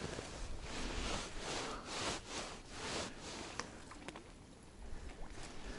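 Faint rustling and scraping with a few sharp clicks as a bottom-fishing rig (donka) is cast out with a rod and reel and the line is taken up.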